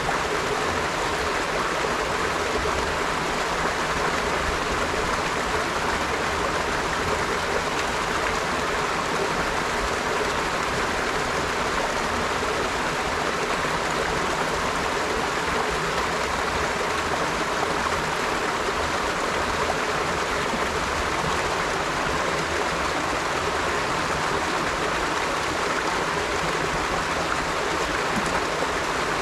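River water flowing steadily, an even rushing sound with no changes.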